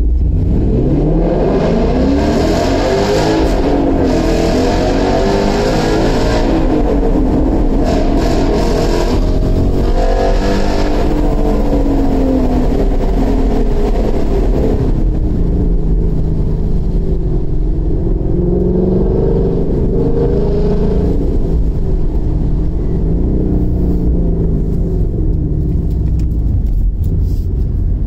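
V8 muscle-car engine and exhaust accelerating hard in a road tunnel. The revs climb and fall back through several gear changes over about the first dozen seconds, then settle into a lower, wavering cruise.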